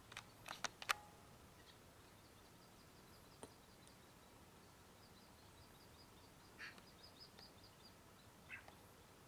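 Near silence in an open wetland, with faint distant small birds calling: a long run of quick, high repeated notes through the middle and a couple of short chirps near the end. A few sharp clicks sound in the first second.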